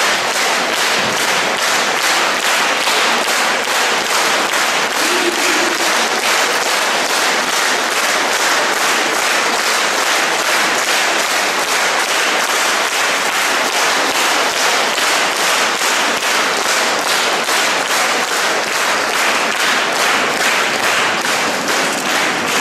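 Large audience applauding, the clapping falling into a steady rhythmic beat in unison.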